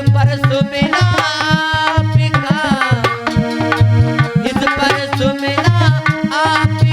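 Bhajan music: a steady drum rhythm under a melody line whose notes slide and bend in pitch.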